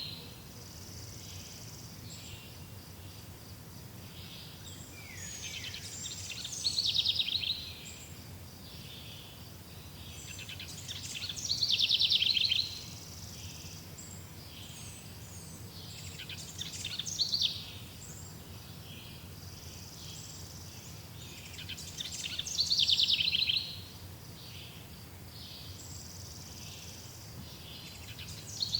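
Wild songbird repeating a loud, rapid trilled song phrase about every five to six seconds, with fainter chirps from other birds in between, over a steady low background hum.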